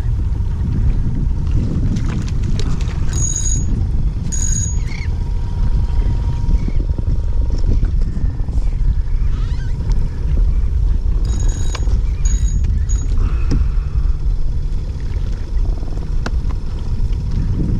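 Wind buffeting the microphone, a steady loud low rumble, with a few brief high-pitched chirps about three and four and a half seconds in and again around eleven to thirteen seconds in.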